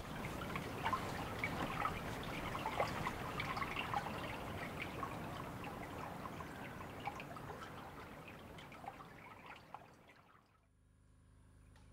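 Shallow stream running over stones, a steady babbling with many small splashes and drips, fading out about ten seconds in.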